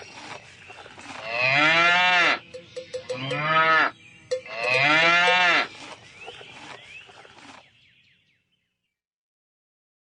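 Cow mooing three times, each moo about a second long with a pitch that rises and falls.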